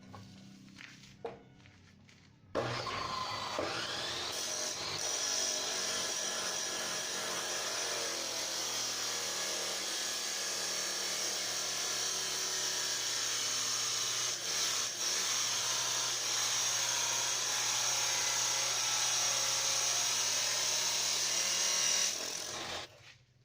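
Welding arc on thin square tubing and angle bar, crackling and sizzling steadily for about twenty seconds under a low electrical hum. It starts suddenly a couple of seconds in and cuts off near the end.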